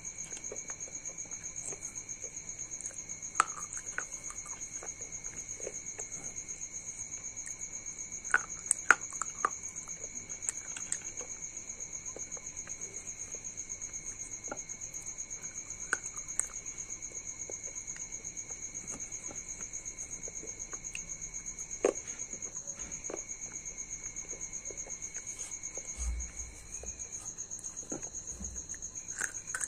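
A steady, high-pitched insect trill runs throughout. Over it come scattered sharp clicks and taps of small hard pieces of broken slate pencil and clay being handled on a wooden table. There is a short low thump near the end.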